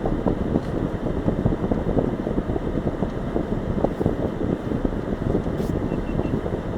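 Wind buffeting the microphone in a snowstorm: a steady, loud, rough rumble with constant irregular low thumps.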